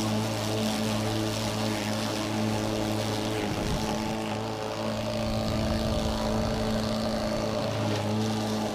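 DeWalt DCMW220 cordless brushless lawn mower running steadily with an even motor-and-blade hum as it cuts thick, tall grass into its rear bag. The hum wavers for a few seconds in the middle.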